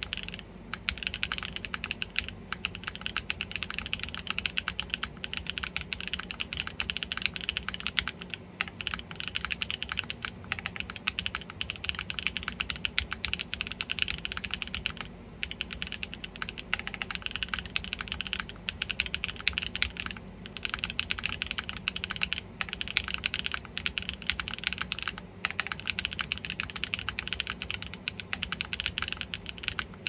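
Fast, continuous typing on a GEONWORKS F1-8X V2 custom mechanical keyboard: factory-lubed Diamond Avalon switches in an aluminium plate on O-ring strip mounts with no dampening, under GMK Apollo keycaps. Dense key clacks run on with a few brief pauses.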